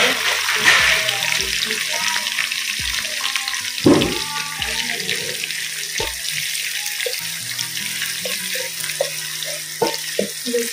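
Sliced onions sizzling hard in hot ghee in a karahi, stirred with a wooden spoon that knocks against the pan several times, loudest about four seconds in. The onions are at the start of frying, before they turn golden.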